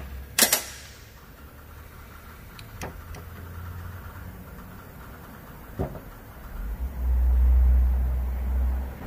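Workshop handling noise: one sharp clack about half a second in, two faint taps, then a low rumble lasting about two seconds near the end.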